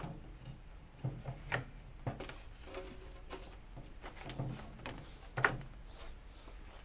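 A few light, scattered knocks and clunks, as of objects being handled, over a faint low hum.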